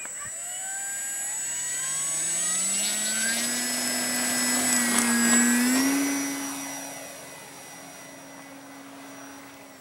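ParkZone F4U-1A Corsair RC plane's electric motor and propeller whining under throttle. The pitch climbs over the first few seconds and then holds, loudest around five to six seconds in, then fading as the plane draws away.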